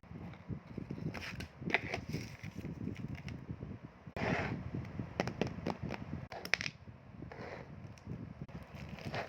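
Packaging being handled while an order is packed: rustling and crinkling, with many light clicks and taps of small items being picked up and set down, and a few louder crinkles along the way.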